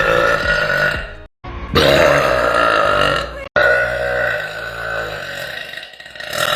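A young woman's long, loud belches, one after another, each breaking off suddenly where the next begins, about a second and a half and three and a half seconds in, with another starting near the end.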